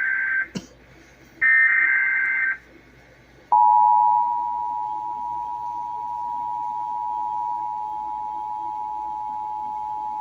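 Emergency Alert System SAME header data bursts: harsh digital screeches about a second long, one ending half a second in and another about a second later. At about three and a half seconds the steady two-tone EAS attention signal (853 Hz and 960 Hz together) starts and holds without change.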